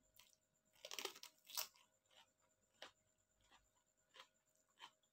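Crunchy bite into a raw cucumber about a second in, followed by chewing with crisp crunches about every two-thirds of a second.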